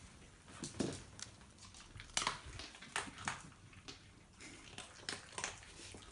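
Faint, scattered clicks and rustles of a Pembroke Welsh corgi moving about on a hard floor.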